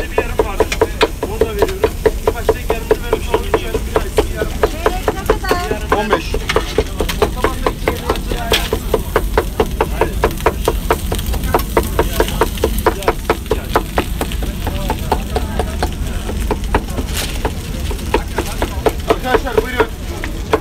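Metal blade chopping grilled kokoreç (lamb intestines) on a hot flat-top griddle in quick, even strokes, about three to four a second, with the meat sizzling.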